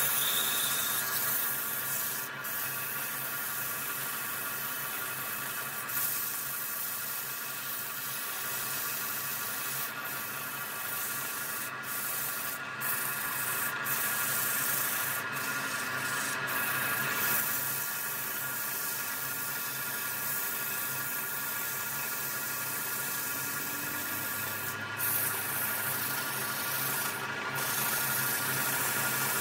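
Wood lathe running, with a steady rubbing, hissing noise from the spinning wood being worked and a constant motor hum underneath.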